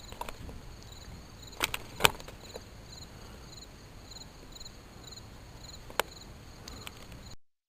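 Insects chirping steadily, short high chirps repeating over and over, with a few sharp clicks, the loudest about two seconds in.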